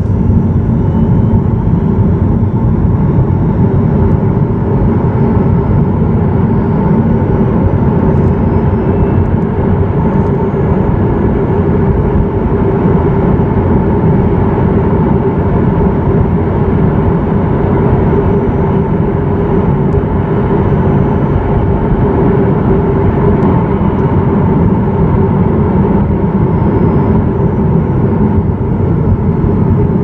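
Honda e electric car driving, heard from its cargo area above the rear motor: heavy road and tyre noise with a faint electric drive-motor whine, as the car speeds up to about 60 km/h and then eases off.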